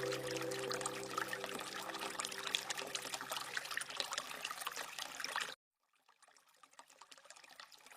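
Rain dripping and trickling, many small drops ticking over a steady patter, as soft held music tones fade out in the first couple of seconds. The sound cuts off abruptly about five and a half seconds in, leaving near silence.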